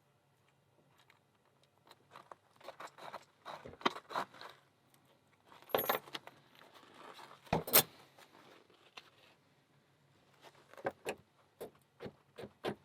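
Small metal lock parts clicking and rattling as they are handled: an American 1100 padlock being put back together after gutting. Irregular sharp clicks come in clusters, with two louder clacks in the middle.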